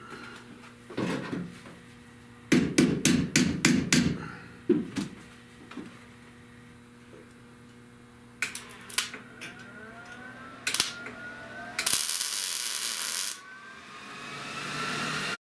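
Tools working car body sheet metal: a quick run of about eight sharp metal strikes with a low ring, then scattered clicks and knocks. Near the end come a short burst of hiss and a rising whine, which cuts off suddenly.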